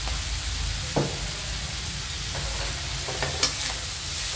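Shellfish stir-frying in a metal wok with a steady sizzle. A metal spatula knocks against the pan about a second in and scrapes through the dry stir-fry near the end as it is tossed.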